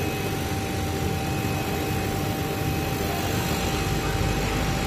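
Richpeace automatic single-head template machine running, its gantry head working over green plastic template sheet: a steady mechanical hum with a constant thin whine.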